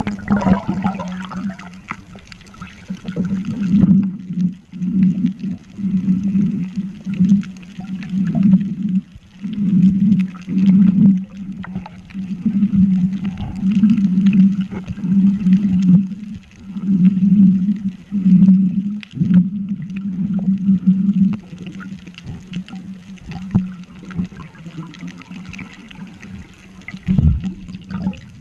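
Muffled underwater sound picked up by a submerged camera: a low hum that swells and fades in irregular pulses, over faint water hiss, weakening about two-thirds of the way through.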